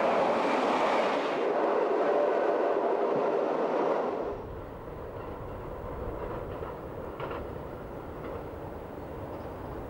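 Narrow-gauge train running loudly for about four seconds, then an abrupt change to a quieter, steady low rumble of a train on the move with a few light clicks from the rails.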